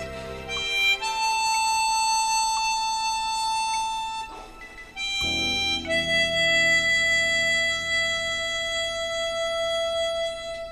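Harmonica playing a slow melody with long held notes: a high note held for about three seconds, a brief break about four and a half seconds in, then a lower note held for about four and a half seconds. Lower backing accompaniment sounds underneath.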